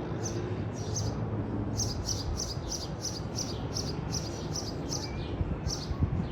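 A bird chirping over and over, about three short high chirps a second, with a steady low rumble of noise beneath.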